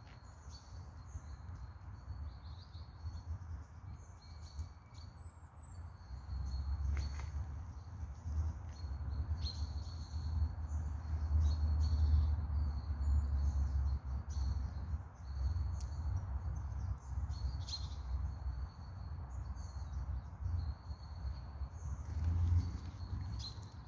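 Tits chirping: many short, high calls scattered throughout, over a low rumble that grows louder about six seconds in.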